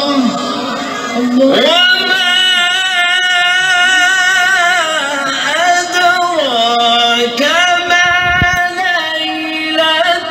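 A man's solo voice chanting in long, drawn-out held notes that waver and glide up and down in pitch, in the melismatic style of Arabic religious recitation.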